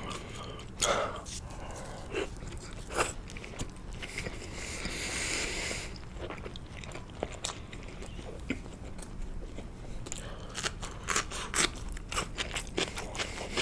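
Close-miked chewing of sushi, with wet mouth clicks and smacks at irregular intervals. A brief hiss rises and fades about four to six seconds in.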